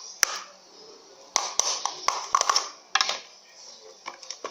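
Slime being stirred and worked in a plastic pot while it is activated: a sharp tap just after the start, then a few short sticky bursts spaced roughly a second apart.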